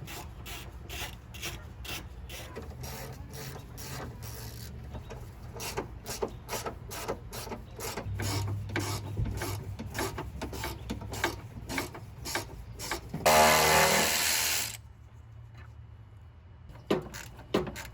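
Hand ratchet wrench clicking in steady runs, about three to four clicks a second, as bolts on the car's front end are turned. Near the end comes one loud, harsh burst lasting about a second and a half.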